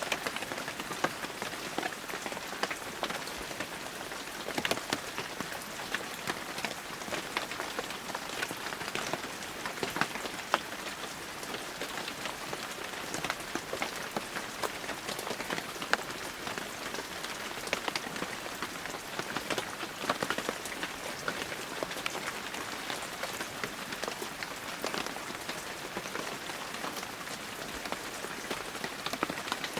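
Heavy rain falling steadily, a dense hiss of rainfall with many distinct sharp drop hits on surfaces scattered throughout.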